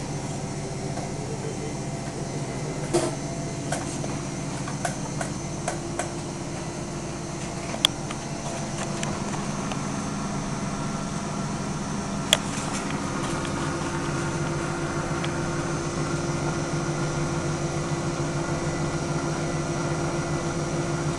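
Washing machine running with a steady motor hum and whir, growing a little louder about halfway through. A few sharp clicks or knocks come at about 3, 8 and 12 seconds.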